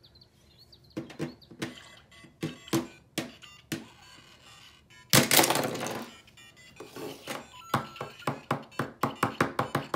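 LEGO Mario interactive figure knocking and clicking as it is hopped across plastic LEGO course tiles, mixed with short electronic game sound effects from the figure's speaker. A louder noisy burst of just under a second comes about five seconds in, and near the end there is a quick run of taps as the figure is bounced on the Bowser Jr. piece.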